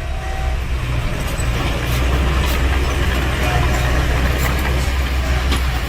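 Heavy earthmoving machinery running steadily with a deep, constant engine drone. A few faint clanks come through.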